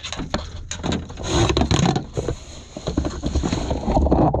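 Gear being rummaged and shifted by hand: irregular knocks, clatter and rustling as a nylon bag is pulled open and hard cases are moved.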